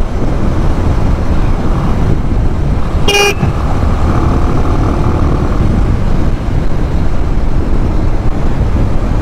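Steady engine, wind and road noise of a motorcycle on the move, picked up by a mic inside the rider's helmet. One short vehicle horn toot sounds about three seconds in.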